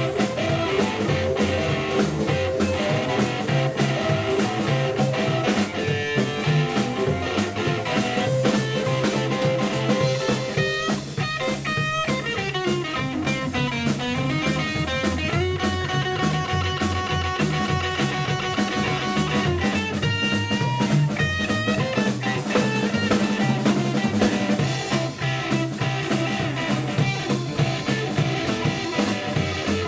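A live blues band playing an instrumental stretch on drum kit, upright double bass and guitar, with no singing. From about a third of the way in, a lead solo line slides down and then holds long high notes over the rhythm before the full band returns.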